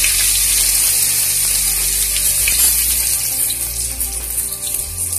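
Sliced onions sizzling in hot cooking oil, freshly dropped in: a loud, steady frying hiss that slowly fades as the oil's temperature drops around the cold onions.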